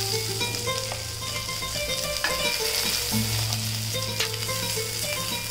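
Chicken seekh kebabs sizzling in oil on a grill pan, a steady frying hiss, with a few light clicks from metal tongs as the kebabs are lifted out. Soft background music plays over it.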